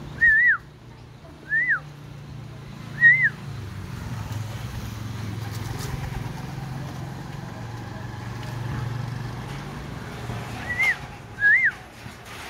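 Short, loud whistles, each rising and then dropping in pitch: three in the first few seconds and two more near the end. A low, steady rumble fills the quiet stretch between them.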